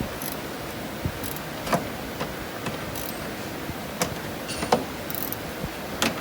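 Scattered sharp metallic clicks and knocks of hand tools and bolts being handled, about a dozen irregular taps over a steady background hiss.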